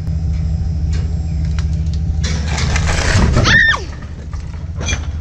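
Motorhome engine idling, a steady low exhaust rumble. About two seconds in, a rising whoosh builds and ends in a brief falling whistle, after which the rumble is quieter.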